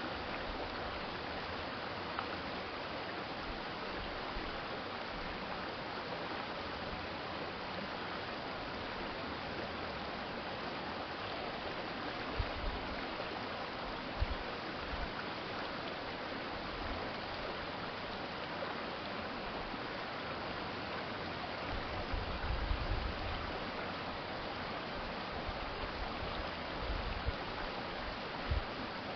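A shallow urban stream flowing, giving a steady, even rush of water. A few brief low thumps come through about midway and near the end.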